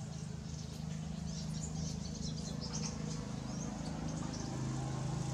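Scattered short, high bird chirps over a steady low hum.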